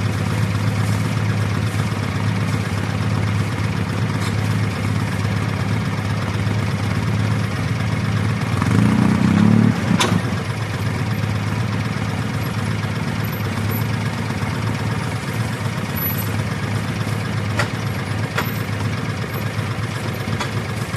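Vehicle engine running steadily, growing louder for about a second around nine seconds in, with a sharp knock at about ten seconds.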